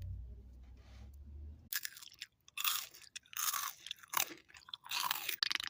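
Crunchy Cheetos being chewed close to the microphone: after a low rumble, a run of loud crunches starts a little under two seconds in and comes in repeated bites.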